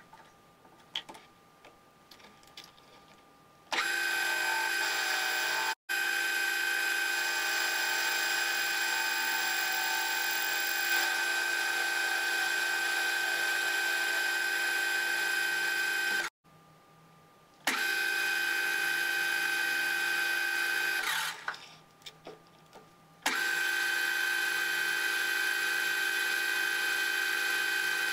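Electric motor of a workshop machine running with a steady high whine. It starts about four seconds in, cuts out twice and comes back each time, with a few light clicks in the quiet gaps.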